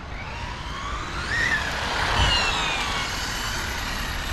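Brushless electric RC car driving past at speed: its high motor whine rises in pitch as it approaches and drops as it goes by, loudest around the middle, over a steady low rumble.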